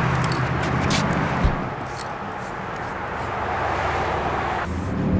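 Street traffic and a vehicle engine running under short hisses of an aerosol spray-paint can sprayed onto cardboard. A single sharp knock sounds about one and a half seconds in.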